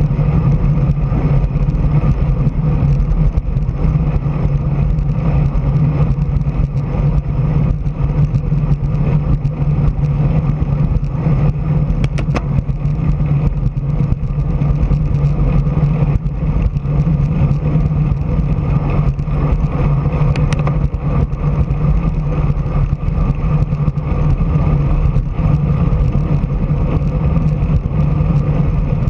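Steady running noise of a vehicle moving along a road at an even speed: a constant low hum with rumble and rush from the tyres and wind on the microphone.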